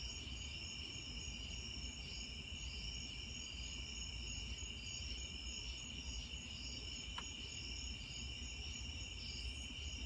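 Chorus of crickets and other insects trilling steadily: one continuous high trill, with a higher, rhythmically pulsing chirp layered over it.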